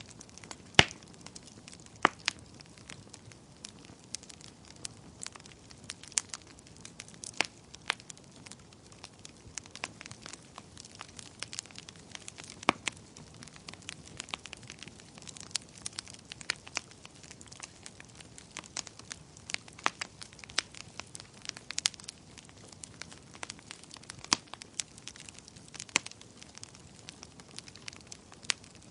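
Wood fire crackling: irregular sharp pops and snaps over a faint low hiss, with a loud pop about a second in.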